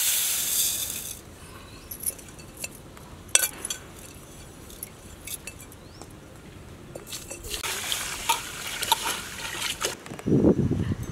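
Dry rice poured from a glass bowl into a steel pot, a loud hiss that dies away about a second in, followed by a few light clinks of the bowl and pot. Later, water swishes and pours in the steel pot.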